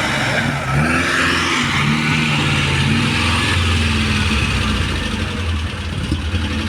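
Rally car launching from the start and accelerating away, its engine revving hard with the pitch climbing and dropping in steps as it shifts up through the gears.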